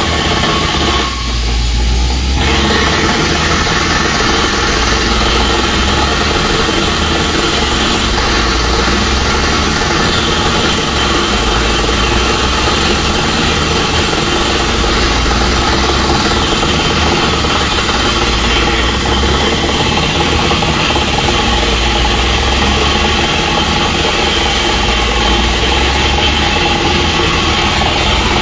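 Truck-mounted water well drilling rig running steadily under its diesel engine, a loud even mechanical drone with a low rumble, dipping briefly about a second in.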